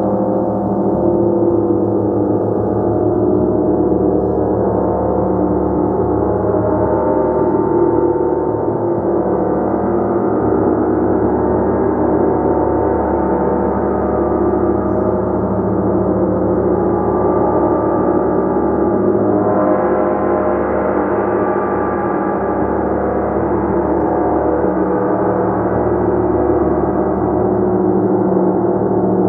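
A gong played continuously, its many overlapping tones merging into one sustained, shimmering wash. About twenty seconds in, the sound grows brighter as higher tones swell up.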